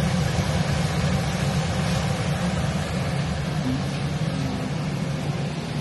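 Steady low hum with an even hiss over it, from a gas stove where a kadai of mushroom and tomato curry is cooking over a lit burner.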